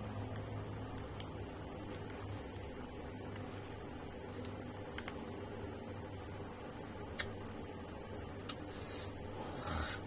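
Eating sounds: chewing of juicy pineapple and mango rujak, with a plastic fork scraping and tapping in a plastic bowl. Two sharp clicks stand out about seven and eight and a half seconds in, followed by a short burst of noise near the end, over a steady low hum.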